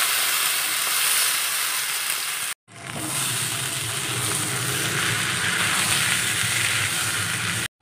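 Marinated gobindobhog rice sizzling as it fries in hot oil and ghee in a wok, turned over with a metal spatula. The steady sizzle breaks off abruptly for a moment about two and a half seconds in, then carries on.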